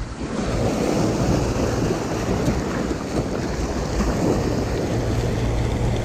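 Small sea waves breaking and washing over a rocky, pebbly shoreline, a steady surf wash, with wind rumbling on the microphone.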